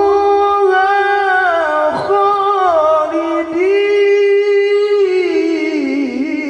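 A man's voice chanting Qur'an recitation (tilawah) through a handheld microphone, drawing out one syllable in long held notes. The pitch slides down partway through and wavers in an ornament near the end. The voice is hoarse and forced, from a throat the reciter says is not healthy.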